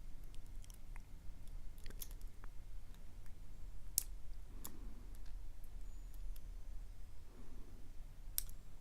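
A few scattered small clicks from a lock pick and tension wrench working the pin stack of a padlock, over a steady low hum.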